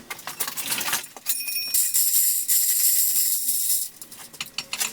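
Metal parts and tools clinking, then a loud, steady, high-pitched hiss lasting about two seconds that starts and stops abruptly, followed by a few more clinks.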